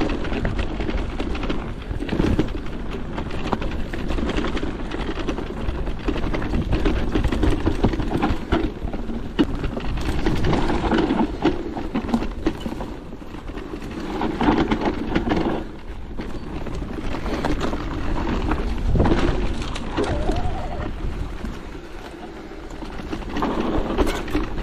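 Merida eONE-SIXTY electric mountain bike ridden over rough trail: tyres, chain and frame rattling and clattering over stones and roots, with many short knocks throughout.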